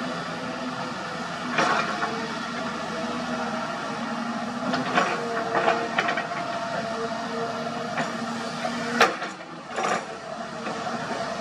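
Hyundai 220 excavator working, its diesel engine and hydraulics running with a steady hum and whine. Several sharp clanks come through as the bucket strikes rock and broken concrete, the loudest about nine seconds in.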